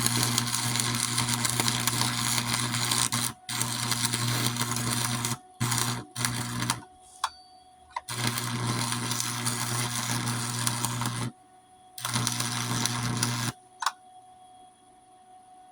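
Chicago Electric 220-volt welder's arc crackling and buzzing over a steady mains hum, in runs of a few seconds with short stops and quick restrikes, while a crack in a steel mower deck is filled. The arc goes out for good about 13 seconds in.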